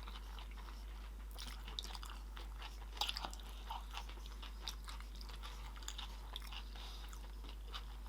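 Close-miked chewing of sushi rolls: irregular wet mouth clicks and small crunches as the rolls are bitten and chewed.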